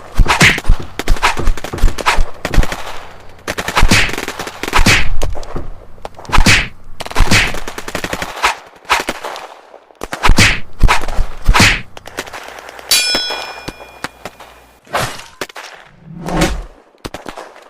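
A string of fight sound effects: sharp punch and hit impacts, one or two a second, some trailing off. A metallic ring sounds about thirteen seconds in, and a low thud comes near the end.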